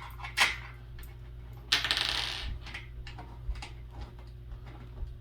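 Metal desk parts and hardware clinking while being handled and fitted: a sharp metallic clink, then a rattling scrape lasting about a second, then a few light ticks.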